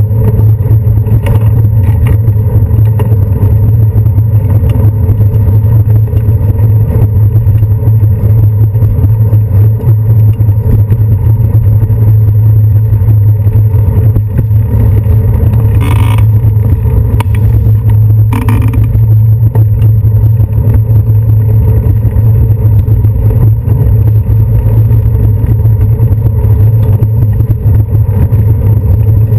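Loud, steady low rumble of a bicycle rolling over paving stones, picked up through the handlebar mount of a GoPro Hero 2 camera as ride vibration and wind noise. Two short higher-pitched sounds cut through past the middle.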